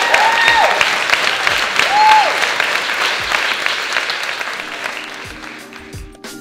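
Audience applauding with a few whoops and cheers, loud at first and fading away. Music with held notes comes in near the end.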